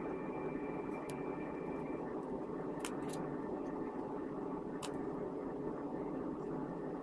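Steady low background noise, broken by a few sharp, light clicks, single or in quick pairs, every second or two; a thin high tone sounds in the first two seconds.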